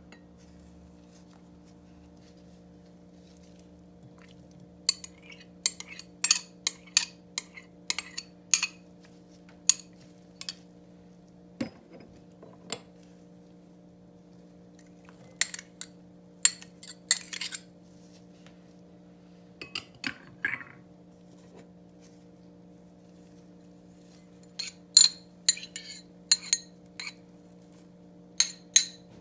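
Kitchen utensils clinking and tapping against dishes in three separate bursts of quick, sharp knocks, over a steady low electrical hum.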